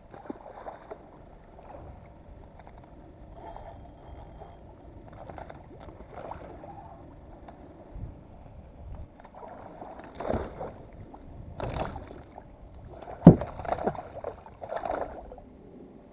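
Water splashing and lapping against a plastic kayak hull while a ladyfish is played alongside, with several louder splashes and knocks in the second half, the sharpest about 13 seconds in.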